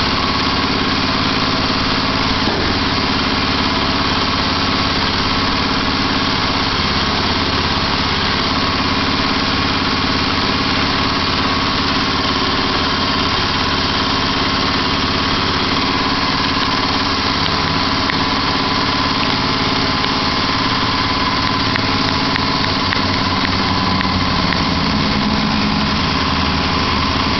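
Engine of a homemade band sawmill running steadily at an even speed.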